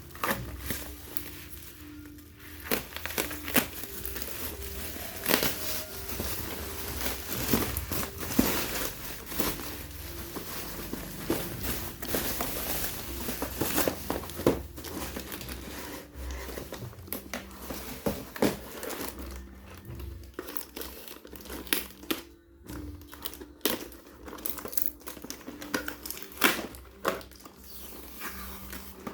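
Packaging being unwrapped by hand: wrapping crinkling in quick, irregular crackles throughout, with some tearing.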